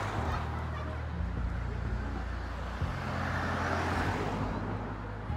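City street traffic: cars driving past with a steady low hum under the noise of the road.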